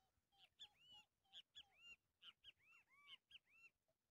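Faint bird calls: a quick series of short chirps, each rising and then falling in pitch, mixed with shorter lower notes, stopping shortly before the end.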